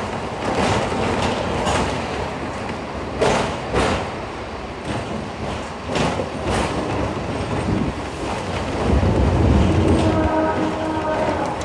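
Hong Kong double-decker electric tram running along street track, heard from on board: steady rumble and rattle, with the wheels knocking sharply over rail joints and points several times, often in pairs. The low rumble swells around the ninth second, and near the end a steady pitched tone sounds for about a second.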